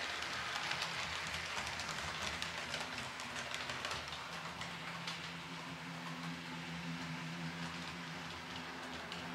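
H0-scale model of an SU46 diesel locomotive pulling one passenger coach along the layout track: a dense, fine crackle of small wheels rolling over the rails and rail joints. A steady low hum comes in about halfway, and the sound eases slightly as the train moves away.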